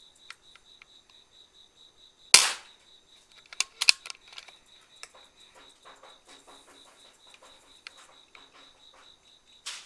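A single shot from a PCP air rifle about two seconds in, a sharp crack, followed a second later by a few smaller clicks and knocks, with another click near the end.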